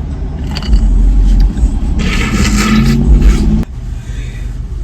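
Car running, heard from inside the cabin: a steady low rumble with a louder rushing, scraping noise about two seconds in. The rumble drops off sharply a little after three and a half seconds.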